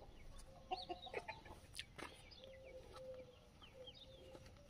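Aseel chickens clucking faintly, with short high calls that fall in pitch scattered through. There are a couple of small clicks and a faint steady hum underneath.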